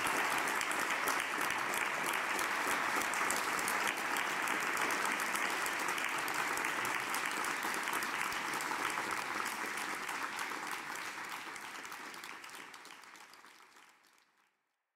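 Audience applauding, a steady mass of hand claps that fades away over the last few seconds until it stops.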